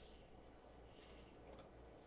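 Near silence: a faint low room hum, with one small tick about a second and a half in.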